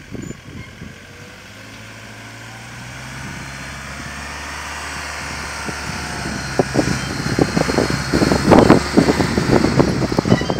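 Iveco Daily 4x4 truck's diesel engine running at low revs as it crawls close by, growing steadily louder. From about two-thirds of the way in, loud irregular crackling and crunching from the tyres on dry dirt and grass takes over.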